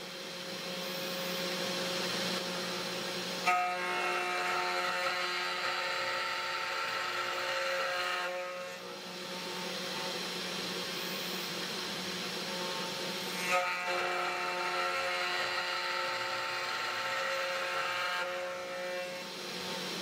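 CNC 3018 Pro Max router's spindle running steadily, its end mill milling a square acrylic plastic rod. Twice, about three and a half seconds in and again about halfway through, a sharper pitched cutting noise starts suddenly and lasts about five seconds as the cutter bites into the plastic. Between those passes the steady spindle hum goes on.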